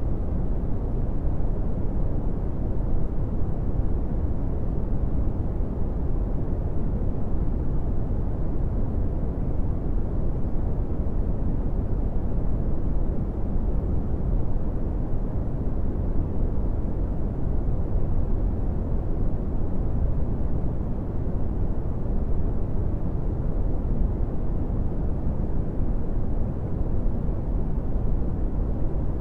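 Brown noise: a steady, deep rumbling hiss with most of its weight in the bass and little above the midrange, unchanging throughout.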